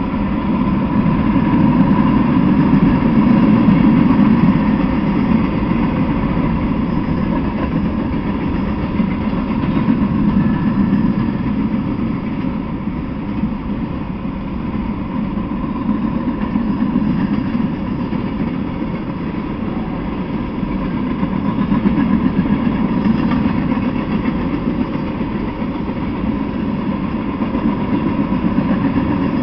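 Freight train cars rolling past, a steady low rumble of steel wheels on the rails that swells and eases slowly.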